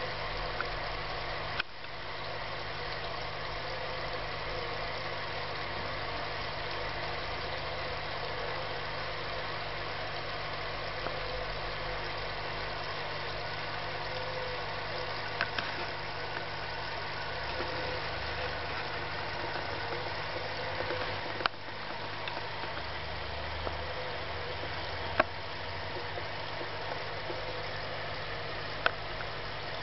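Steady hum and running-water noise of a small aquarium filter pump drawing through a hose, with a few sharp clicks scattered through.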